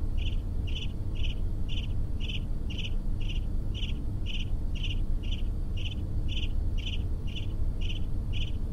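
Crickets chirping in a steady, even rhythm, about two and a half chirps a second: the comic 'crickets' sound effect for an awkward silence when nobody answers.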